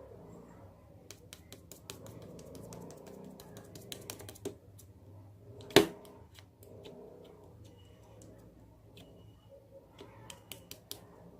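Runs of light clicks and taps, like typing on a keyboard, with one much louder knock about six seconds in.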